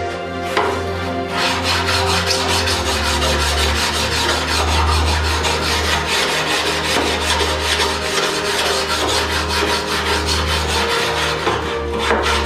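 Abrasive rubbing: a fast, even run of rasping strokes that starts about a second in, over soft background music.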